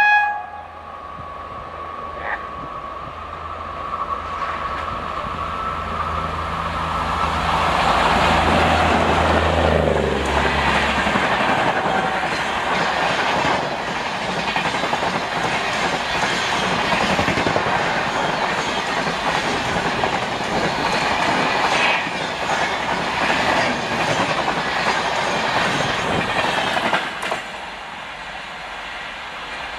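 Indian Railways WAP-4 electric locomotive and its LHB coaches passing at speed. A steady hum and whine from the approaching locomotive drops in pitch as it goes by about ten seconds in. This is followed by the loud rush and clatter of the coaches' wheels on the rails, which falls away a few seconds before the end as the last coach passes.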